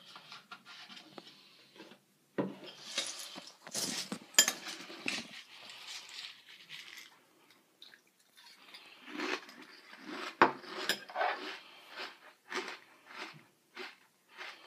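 A spoon clinking and scraping in a bowl of frosted flakes and milk, with sharp clinks about four and ten seconds in. Crunchy chewing of the flakes follows near the end.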